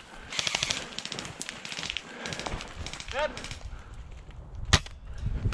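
Airsoft gunfire: rapid rattling bursts of full-auto fire in the first two seconds, then a single sharp shot near the end.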